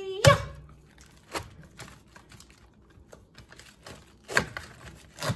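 A thump about a quarter second in, then scattered crisp cracks and crackles of outer leaves being snapped and peeled off a head of green cabbage on a cutting board.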